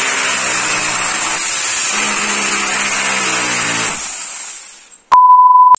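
Corded electric drill boring into a wall, running steadily for about four seconds, then slowing and winding down with a falling pitch. Near the end a loud, steady single-pitch beep cuts in and cuts off.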